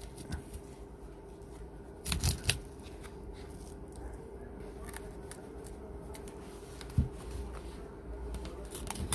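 Plastic opening tools prying the glued plastic back cover off a Nokia G10 phone: scattered small clicks and scrapes as the cover separates. There is a quick cluster of sharp clicks about two seconds in and a single sharp click about seven seconds in, over a faint steady hum.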